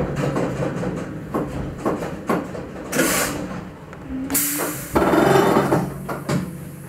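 Electric railcar of the Grütschalp–Mürren line rolling slowly over station points with a run of wheel knocks, then coming to a stand. Two bursts of compressed-air hiss follow as it halts, the second louder and longer, with a short tone just before it.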